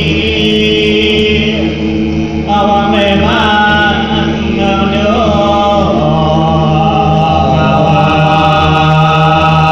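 Group of voices chanting in long held notes over a steady low drone, with more higher voices joining about two and a half seconds in.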